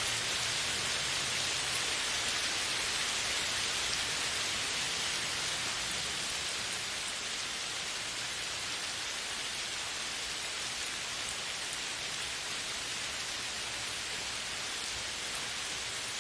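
Steady downpour of rain on a forest's leafy canopy: a dense, even hiss of countless drops.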